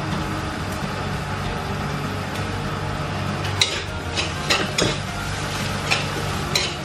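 Steady low mechanical hum throughout. From about three and a half seconds in, a metal spatula scrapes and clinks against a metal wok about six times as onions, chunky peanut butter and butter frying in it are stirred.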